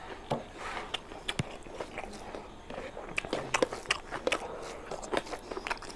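Close-miked eating sounds: wet chewing and lip smacks, and a bare hand squelching curry-soaked rice on a plate, heard as a string of irregular sharp clicks that comes thickest about halfway through.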